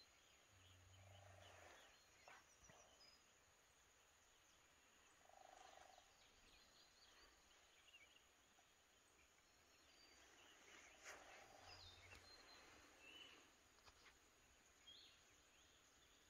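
Near silence of a calm lakeside morning, with faint bird chirps and three faint low animal calls about five seconds apart.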